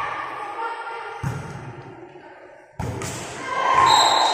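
A volleyball being struck in a gym: two sharp thuds of hand on ball about a second and a half apart, while crowd voices swell into shouting toward the end. A high steady whistle tone starts just before the end.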